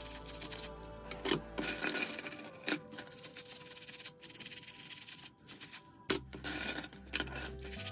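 Stiff plastic nail brush scrubbing metal nail clippers and implements over a soapy sink: rapid scratchy rubbing in spells with short pauses, with a few light knocks of the metal tools.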